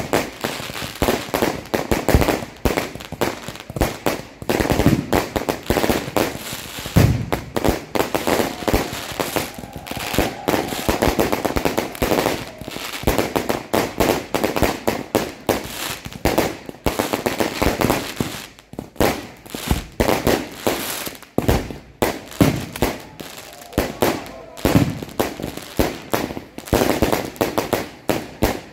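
Fireworks going off in rapid succession: dense, near-continuous bangs and crackling bursts of shells, several a second.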